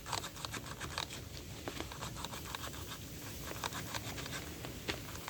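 Light, irregular clicks and scraping from hand work on small parts, with a faint low hum underneath.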